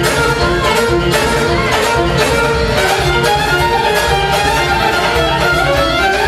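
Live dance music led by an amplified violin playing a quick melody over a steady beat.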